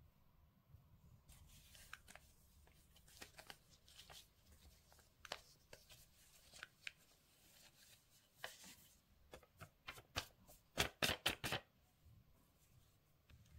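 Hands handling an iPhone box and its packaging: scattered light rustles and taps, then a quick run of about six sharp strokes a little past two-thirds of the way in.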